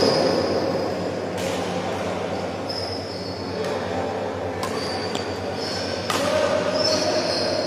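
Badminton rally: four sharp racket strikes on the shuttlecock, a second or two apart, with short high squeaks of shoes on the court floor between them, over a steady hum of hall noise.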